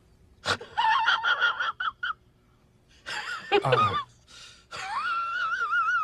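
A man's high, wheezing laugh in three long bouts of wavering squeals, with sharp gasps between them.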